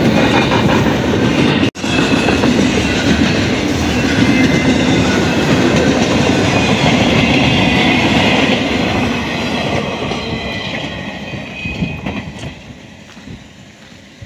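Double-stack intermodal freight train rolling past close by: a steady rumble and clatter of the container well cars' wheels on the rails. The sound cuts out for a moment about two seconds in, then runs on loudly and fades away over the last few seconds as the train recedes.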